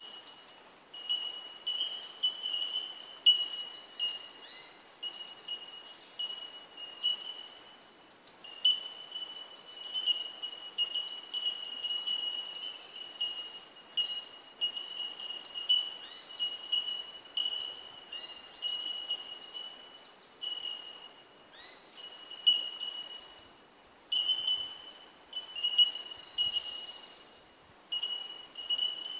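A chorus of bell miners (bellbirds) giving ringing 'tink' notes on one high pitch. The many birds overlap into an almost unbroken run of pings that swells and fades, with brief lulls.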